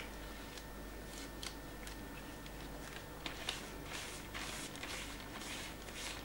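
A cloth rubbing across an inked etching plate in short swishing strokes, working the ink into the etched lines. The strokes come closer together from about three seconds in.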